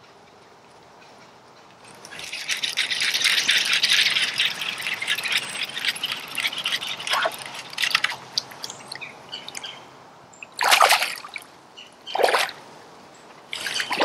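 A hooked fish splashing and thrashing at the water's surface as it is reeled in on a baitcasting rod: a long stretch of splashing about two seconds in, then three short splashes near the end as it comes alongside the kayak.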